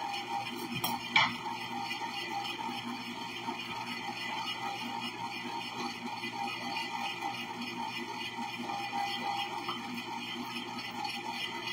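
Compressor ice cream maker running steadily, its motor and churning paddle giving an even hum. A couple of sharp knocks about a second in.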